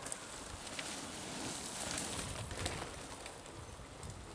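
Mountain bike passing close on a dirt forest trail: knobby tyres rolling over dirt and dead leaves, growing louder to a peak about two seconds in and then fading, with a few sharp clicks and knocks from the bike.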